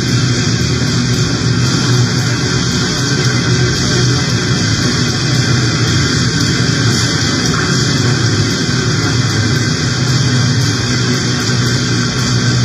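Harsh noise music: a loud, steady wall of distorted noise over a low droning hum, with no breaks or changes.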